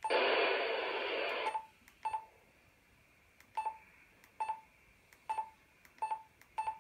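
Yaesu FT-817ND transceiver: a burst of receiver hiss from its speaker that cuts off after about a second and a half, then a string of short key beeps, about six of them at uneven intervals, as its buttons are pressed.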